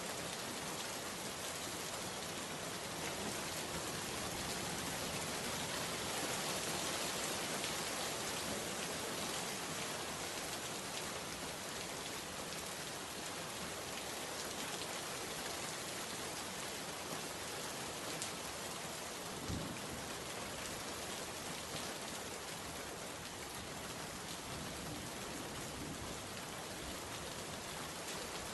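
Steady rain falling, an even hiss of drops hitting a surface, with one brief soft low thump a little past halfway.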